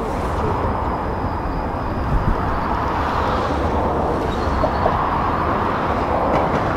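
Steady roar of distant military jet aircraft in formation passing by, mixed with wind buffeting the microphone.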